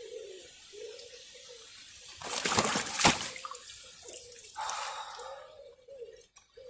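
Water splashing as a landed fish thrashes in the shallows: one loud splash about two to three seconds in, ending in a sharp slap, and a smaller splash about two seconds later.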